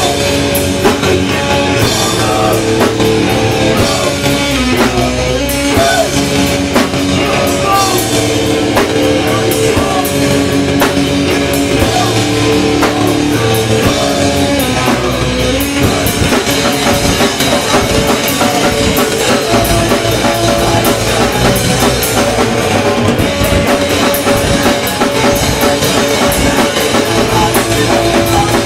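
A hardcore punk band playing live, with distorted guitars, bass and a pounding drum kit, loud and continuous.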